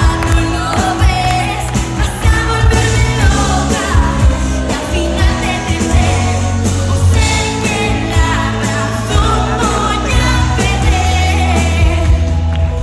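Live pop song: a woman's lead vocal through a handheld microphone over a band with keyboards, electric guitar, heavy bass and a steady drum beat.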